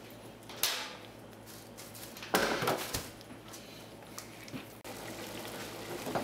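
A few clunks and scrapes of kitchen cookware being handled, the loudest about two and a half seconds in, with small ticks later, over a faint steady low hum.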